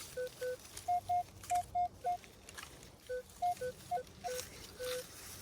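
Metal detector with a large 15-inch search coil giving short beeps in two pitches, one lower and one higher, in irregular runs as the coil is swept back and forth to pinpoint a buried target.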